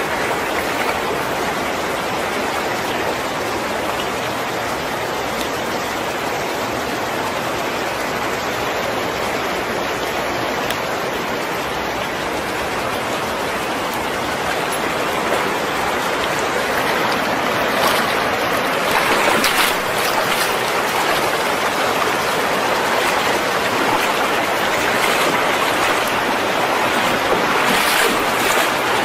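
Floodwater rushing through a street: a steady rush of flowing water, a little louder in the second half, with a few short crackles near the end.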